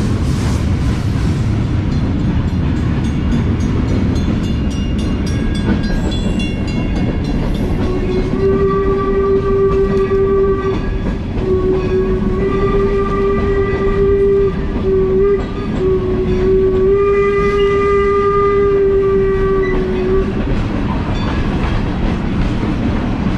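Locomotive whistle blowing in a few long, steady blasts over about twelve seconds, starting about a third of the way in, over a steady low rumble.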